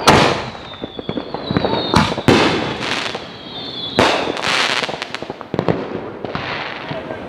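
Consumer fireworks going off: a string of loud bangs, about five of them, one to two seconds apart, each fading out, with crackling between them. A high whistling tone that drops slightly in pitch runs through the first few seconds.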